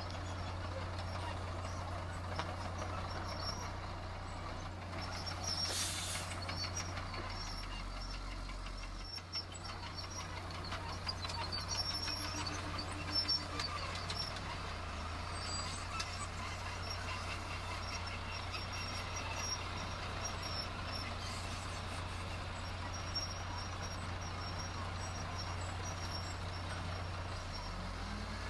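Heavy diesel construction machinery running steadily with a low, even engine drone, and a short burst of hiss about six seconds in.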